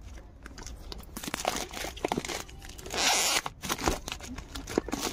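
Clear plastic shrink-wrap being torn and pulled off a cardboard product box, crinkling and crackling, with a longer, louder rip about three seconds in.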